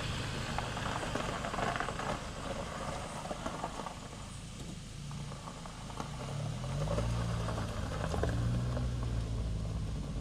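A Suzuki car's engine running at idle, then pulling away about six seconds in, its engine note rising and then holding steady as it drives off.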